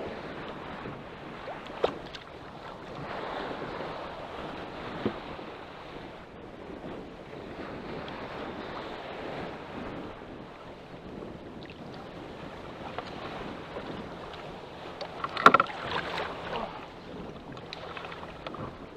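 Wind buffeting the microphone over choppy, wave-tossed water, with a few sharp knocks; the loudest cluster of knocks comes about three-quarters of the way through.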